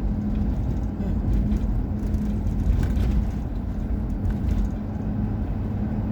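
Car driving along, heard from inside the cabin: a steady low rumble of engine and road noise with a droning hum.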